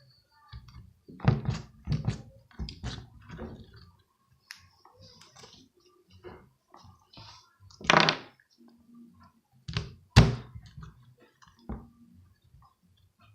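Slime being squished and handled: irregular wet squelches, clicks and pops, several close together in the first few seconds, then two louder squelches about eight and ten seconds in.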